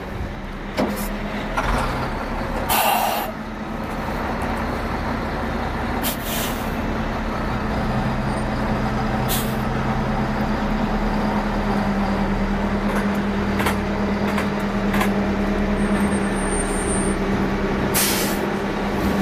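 Oshkosh HEMTT fuel tanker truck's diesel engine running in a steady low drone as the truck pulls off and drives slowly past, growing louder as it comes near. Several short hisses of air from its air brakes break through, the longest about three seconds in.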